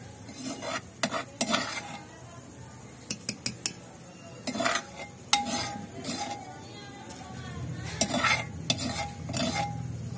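A metal spoon clinking and scraping against metal cookware in irregular bursts, some strikes ringing briefly, over a steady low bubbling of kadhi simmering in a kadhai over a wood fire.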